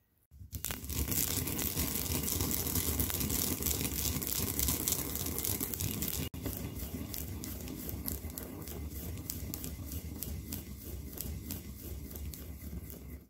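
Sesame seeds being ground in a white ceramic mortar with a wooden pestle: a steady gritty scraping and crunching made of fast repeated strokes, breaking off for an instant about six seconds in.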